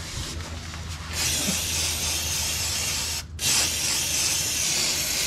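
Aerosol can of brake cleaner spraying through its red extension straw: a steady hiss starting about a second in, broken briefly about three seconds in, then resuming.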